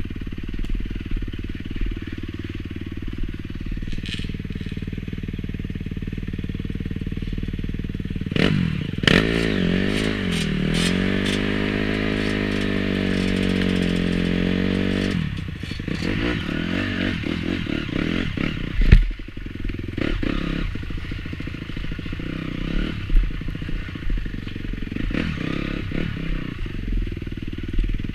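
Dirt bike engine running as the bike rides a rough trail, the engine note climbing and falling with the throttle and loudest in the middle stretch. Frequent clattering knocks from the bike over roots and ruts, with one heavy knock about two-thirds of the way through.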